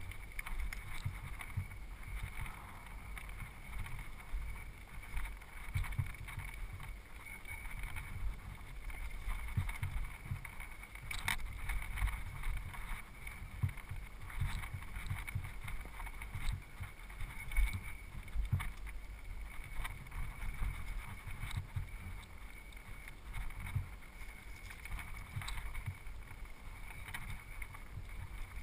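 Mountain bike riding down a rocky singletrack: tyres rolling over loose stones and the bike rattling, with irregular knocks and clicks as it hits rocks, over a low rumble of wind on the camera microphone.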